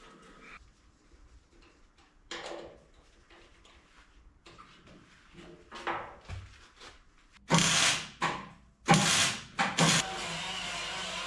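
Sheet-metal parts being handled with a few light knocks and rattles, then a handheld power tool run in two short loud bursts and then kept running steadily for the last second or so.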